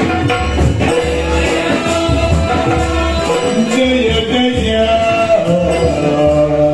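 Yakshagana stage music: the bhagavata's sung, wavering melodic line over a regular beat of maddale and chande drums.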